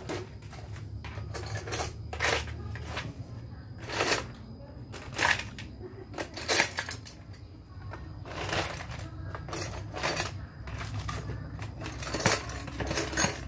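Metal tools and small hardware clinking and clattering irregularly as someone rummages through a tool crate and a bucket of parts, with rustling between the clinks.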